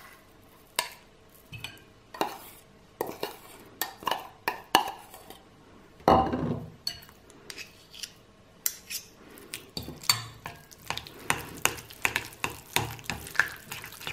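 Metal spoons scraping and clinking against a small metal bowl and a ceramic bowl in irregular taps, then stirring thick yogurt into melted white chocolate. About six seconds in there is one louder knock.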